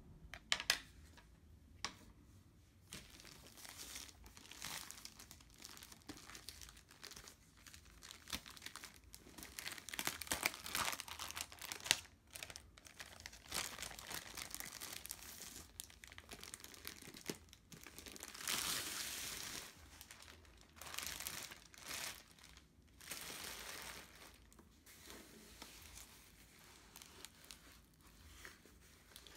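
Plastic crinkling and rustling as a rolled diamond painting canvas is drawn out of its clear plastic bag and unrolled, its plastic protective film rustling. It comes in irregular handling rustles, with a couple of sharp clicks in the first two seconds and the loudest rustling about two-thirds of the way through.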